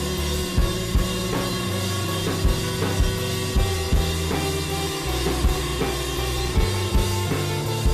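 Background music with a drum kit playing a steady beat over held bass and synth tones.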